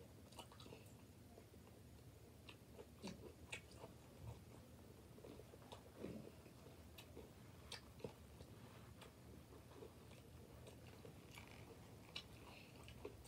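Faint chewing of a jalapeño stuffed with mozzarella and hot chips, with scattered small crunches and mouth clicks.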